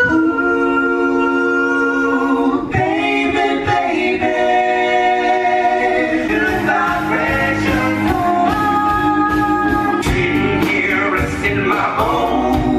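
Live music: a vocal group singing long held chords in close harmony, the chord shifting every two or three seconds.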